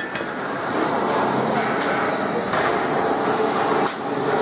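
Resanta IPR-40 inverter air-plasma cutter cutting metal: a loud, steady hiss and crackle of the arc and air jet, briefly dipping with a click near the start and again just before the end.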